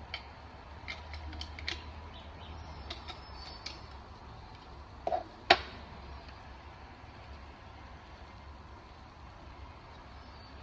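Light plastic clicks and taps from a handheld facial cleansing brush and its plastic parts being handled, scattered over the first few seconds. About five seconds in comes a short knock, then one sharp, louder click.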